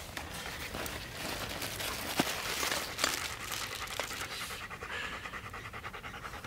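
A dog panting rapidly and steadily, with a few light clicks.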